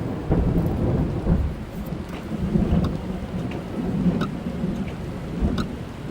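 Rain on a car's body and windscreen heard from inside the car, with a continuous low thunder rumble and scattered sharp raindrop ticks.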